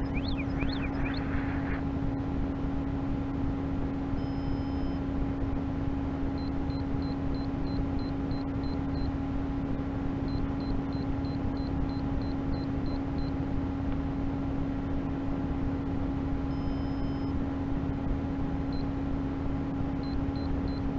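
Beeper of a crashed model rocket's still-powered flight electronics. A warbling siren cuts off about a second in. After that come strings of faint, short, high beeps in groups, with a couple of longer held tones, over a steady hum.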